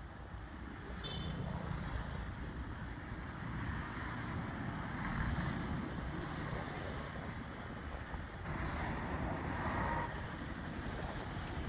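Steady outdoor background rumble and hiss, with a brief faint high chirp about a second in.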